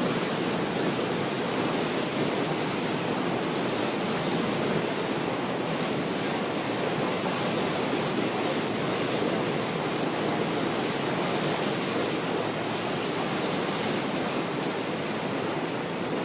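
Steady, even rushing noise of falling and churning water mixed with wind buffeting the microphone.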